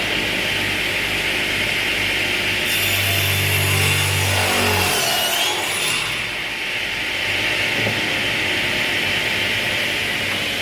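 TKP-120 industrial swing crosscut saw running steadily, its blade cutting through wood for about three seconds near the middle.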